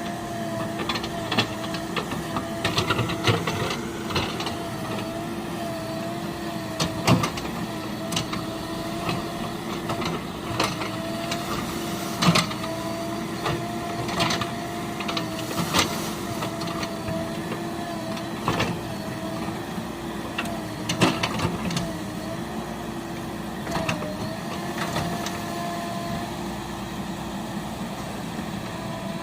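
A heavy vehicle's diesel engine running steadily, its hum dipping briefly in pitch every few seconds, with scattered knocks and clanks throughout.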